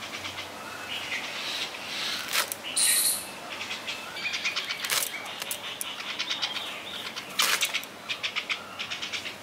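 Bottle gourd leaves crackling and tearing as they are cut on a boti blade, with a few sharp crunches spread through. Birds chirp in the background.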